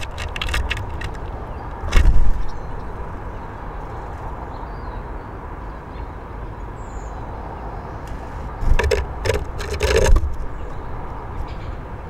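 Small birds landing and moving about on a wooden bird feeder: a few clusters of sharp knocks and scrabbling, the loudest about two seconds in and again between eight and ten seconds. Underneath is a steady low rumble of distant traffic.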